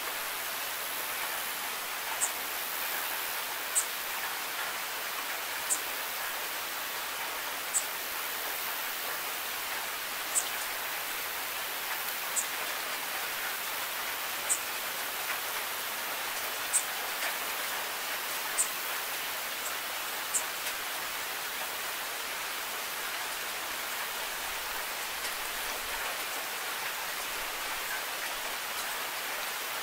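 Steady rain falling, an even hiss with sharp, high ticks every couple of seconds that stop about two-thirds of the way through.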